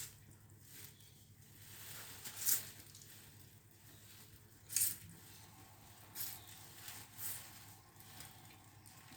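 Close-miked eating of pancit noodles: quiet chewing with a few short sharp noises, the loudest about two and a half and five seconds in.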